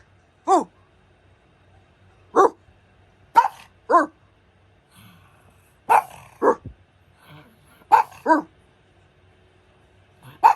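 Pug barking: about nine short barks at irregular intervals, several coming in quick pairs, each bark dropping in pitch.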